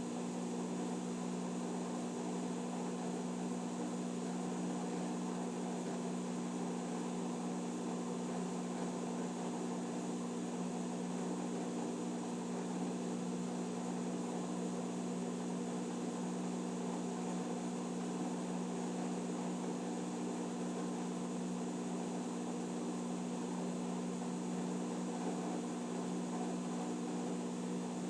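Electrolux Eco Turbo washing machine running with a steady, unbroken hum.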